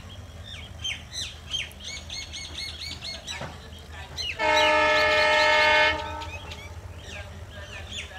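Diesel locomotive horn, from an ALCO WDM-3A, sounding one steady blast of about a second and a half, about halfway through, with birds chirping around it.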